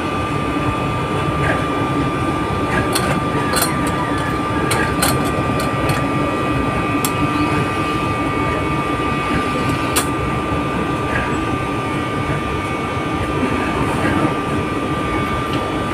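Steady drone of running machinery at a pumping station, with a constant high whine over a lower hum. Several sharp metal clinks stand out, mostly in the first ten seconds, as a steel bar works against the pump fittings.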